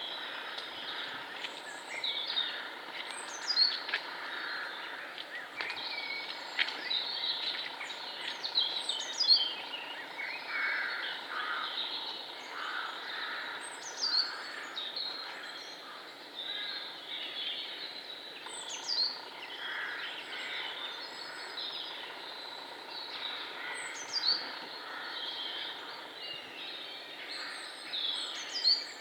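Woodland birdsong: several small birds singing and calling together, with one bird repeating a high, quick phrase that ends in a falling sweep about every five seconds, over a steady background hiss.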